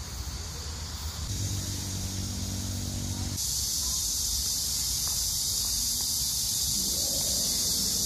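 Steady high-pitched outdoor insect drone. It grows louder about three and a half seconds in, and a low hum lies under it between about one and three seconds in.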